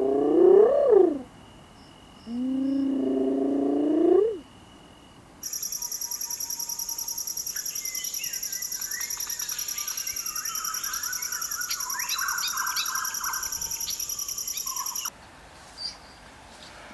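Two drawn-out wild animal calls that rise and fall in pitch, then about ten seconds of a steady, fast-pulsing high buzz with many bird chirps under it, which cuts off suddenly.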